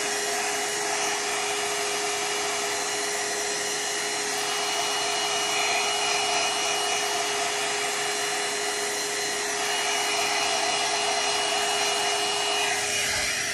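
Hand-held hair dryer blowing steadily on a watercolour painting to dry the wash, with a constant motor hum and whine under the rush of air; it is switched off at the end.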